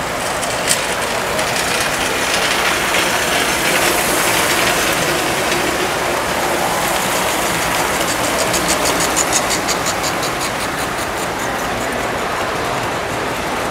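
Standard gauge toy trains running on three-rail track: a steady whir and rumble of the electric motors and wheels. A rapid run of clicks comes from about seven to ten seconds in.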